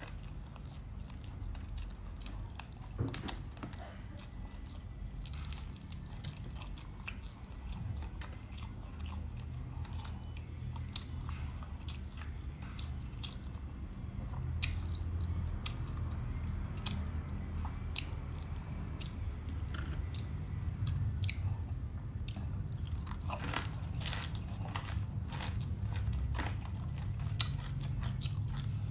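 Close-miked chewing and biting of food, with scattered crisp crunches that come thicker near the end, over a low steady hum.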